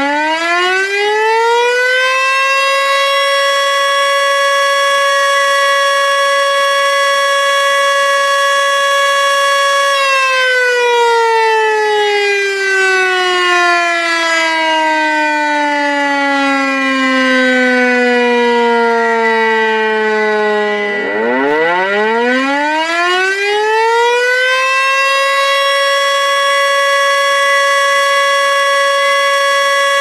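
Civil-defense warning siren sounding: it finishes rising to a steady tone and holds it, winds slowly down in pitch from about ten seconds in, then climbs quickly back up about twenty seconds in and holds the tone again.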